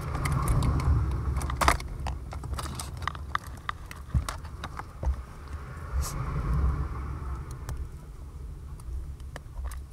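Vinyl electrical tape being pulled off the roll and wrapped around stereo wiring: a quick run of small crackling clicks in the first few seconds, then a few scattered ones, over a steady low rumble.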